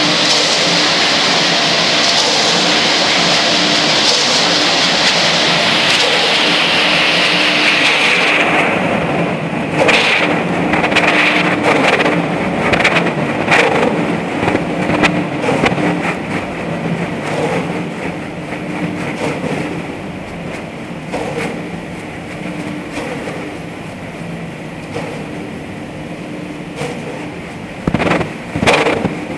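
Drum concrete mixer turning, its motor giving a steady hum while a sand and cement mix tumbles inside. A loud rushing hiss fades out about eight seconds in. After that come irregular knocks of clumps dropping in the drum, with a burst of louder knocks near the end.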